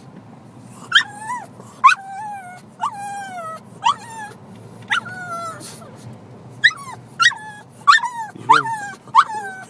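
Pug whining excitedly in a string of high-pitched cries, each falling in pitch, about one a second, starting about a second in and coming faster near the end.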